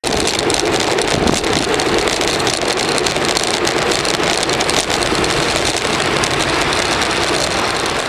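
Continuous loud noise of riding a Brompton folding bicycle along a city street: wind on the microphone and road rumble, with many small clicks and rattles through it.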